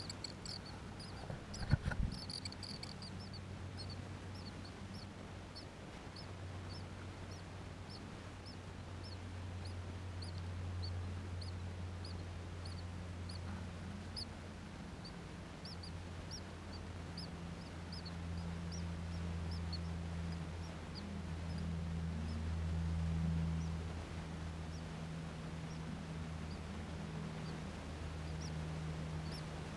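Newly hatched great tit nestlings giving thin, high begging peeps, several a second at first and then a steady scatter of single peeps. A steady low hum runs underneath, and there is a single knock about two seconds in.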